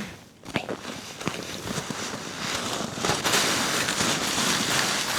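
Dense crackling and crunching that builds up and grows louder about three seconds in.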